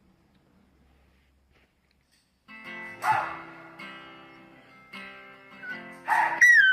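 Near silence, then an acoustic guitar is strummed in slow chords from about two and a half seconds in. Right at the end a loud, high cry starts, falling in pitch.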